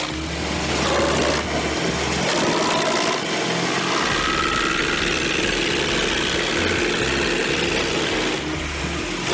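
Tractor-mounted Heizomat wood chipper running and chipping a log: a steady loud machine noise with the tractor engine underneath, and a whine that shifts in pitch a few seconds in.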